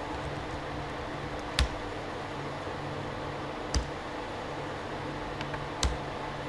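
Three sharp computer keyboard keystrokes about two seconds apart, with a few faint key taps between them, over a steady low hum.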